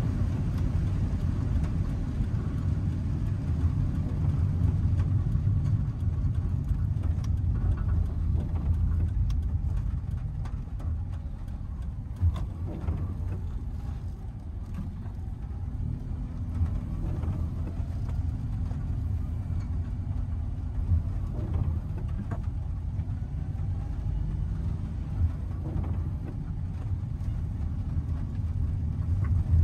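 Kei truck driving on a wet road, heard from inside the cab: a steady low engine and road rumble with tyre hiss. A few sharp knocks come through the body.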